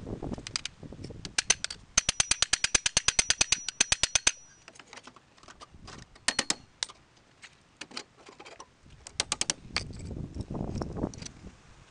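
Hammer blows on the steel frame of a Citroën 2CV chassis, sped up so the strikes come very fast. About two seconds in comes a dense run of roughly ten blows a second with a ringing metallic note, followed by scattered single strikes.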